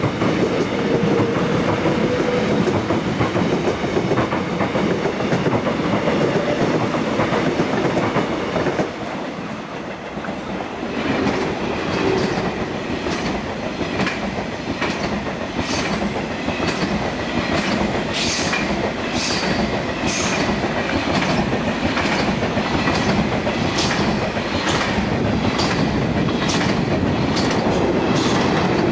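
Electric commuter train running past, a continuous rumble of wheels and rails. From about halfway through, the wheels clack over rail joints in a steady run of sharp clicks as the cars pass close.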